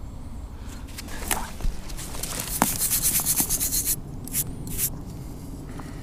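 A stiff brush scrubbing soil off a freshly dug oval metal identity tag: a quick run of short scratchy strokes for about two seconds, then two brief scrubs, with a few light clicks before them.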